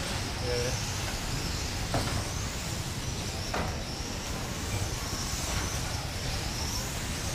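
Small electric RC racing cars lapping a carpet track, their motors whining high and wavering up and down in pitch over a steady low rumble. Two sharp knocks come about two and three and a half seconds in.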